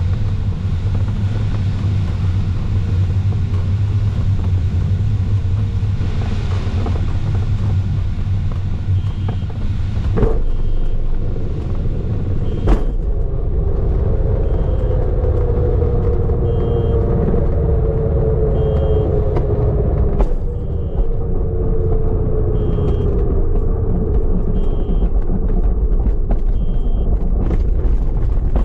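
Glider landing: airflow and rumble in the cockpit, a couple of knocks about ten and thirteen seconds in as the wheel meets the runway, then the main wheel rolling on the runway and grass with a tone that slowly falls as the glider slows. A short electronic beep from the cockpit instruments repeats every couple of seconds through the second half.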